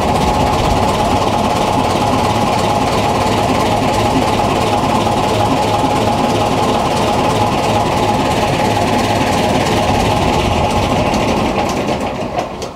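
Boat's inboard engine running steadily and loud in the open engine bay, winding down near the end as it is shut off.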